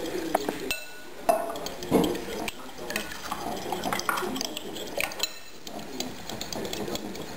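A fork beating raw egg with salt and pepper in a bowl, its tines clicking irregularly against the bowl, with a couple of louder knocks about one and two seconds in.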